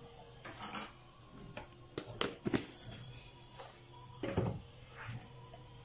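Light, irregular taps and rustles of a spoon and containers being handled around a plastic mixing bowl, with a duller knock about four and a half seconds in.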